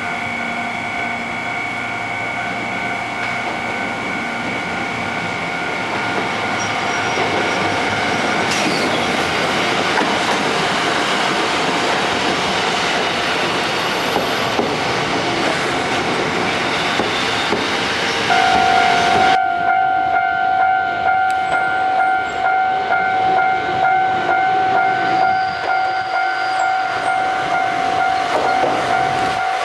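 Kotoden electric train cars passing close by while a level crossing alarm rings steadily. About two-thirds of the way through, the sound cuts abruptly to a louder, lower-pitched crossing bell that pulses.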